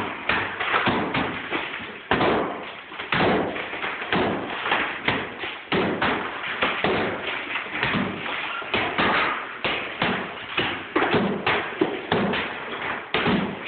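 Hammers striking a plaster-and-lath wall again and again, two people pounding out of step, with plaster breaking off the lath. The blows come irregularly, about two or three a second.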